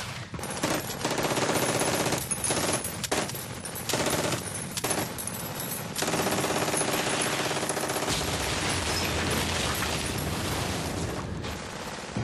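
Battle sound of sustained machine-gun and rifle fire, many rapid shots with a few short lulls, and a deeper rumble joining in the second half.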